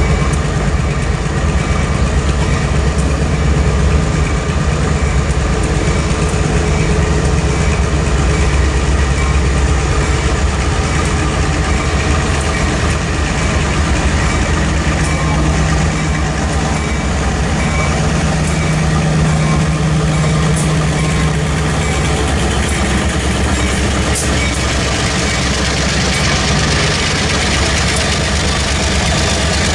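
Diesel freight locomotives running with a steady low engine drone as a train approaches, with wheel-and-rail hiss rising over the last few seconds as the lead units pass close by.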